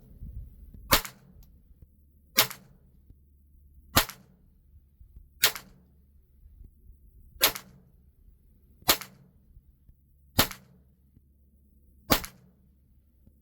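Eight .22 LR gunshots fired one at a time at a steady pace, about one every second and a half, each a sharp crack with a short tail. This is slow aimed fire for a group on target.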